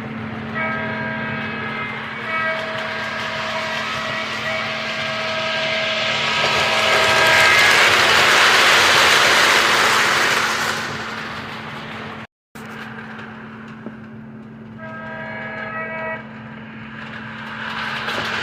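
Model RS11 diesel locomotive's sound system blowing its multi-note horn in a long run of blasts, then one shorter blast near the end, over a steady engine hum. A loud rushing noise swells in the middle, and the sound cuts out briefly about two-thirds through.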